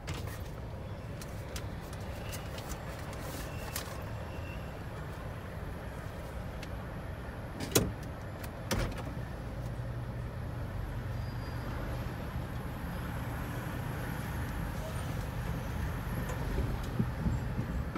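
Steady low rumble of a car's engine and cabin, heard from inside the car, growing a little louder in the second half. A single sharp click about eight seconds in, with a few fainter clicks earlier.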